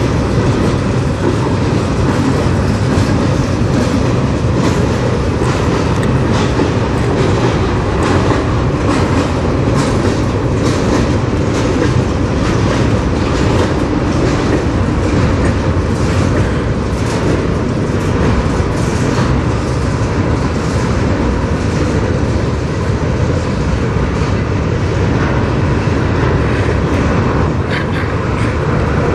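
Freight train of covered hopper cars rolling past with a steady rumble, the wheels clacking repeatedly over the rail joints.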